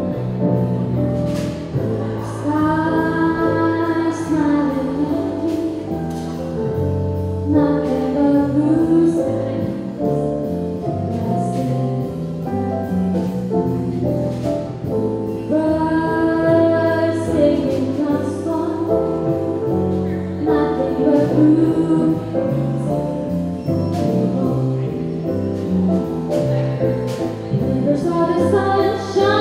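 Live jazz: a woman sings long, held phrases with vibrato into a microphone, accompanied by keyboard chords and guitar.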